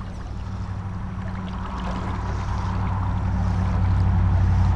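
Shallow river water running, under a low steady hum that grows slowly louder.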